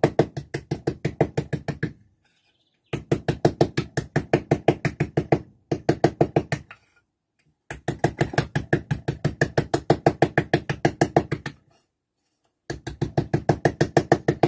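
Small hammer tapping a piece of tin-can metal against a wooden workbench in quick, even light taps, about six or seven a second, in several runs broken by short pauses. The taps are folding and flattening the sharp cut corners of the tin.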